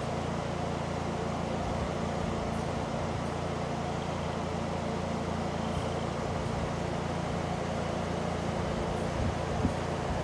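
Electric fan running steadily: an even rush of air over a low, constant motor hum.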